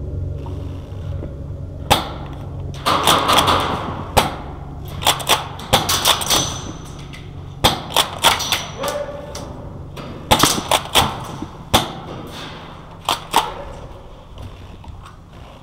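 Airsoft guns firing in a large empty hall: sharp snaps, some single and some in quick runs, from about two seconds in until near the end.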